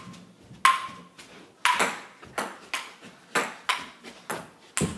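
Ping pong rally: the ball clicking back and forth off paddles and table, about three sharp hits a second, some bounces ringing with a short ping.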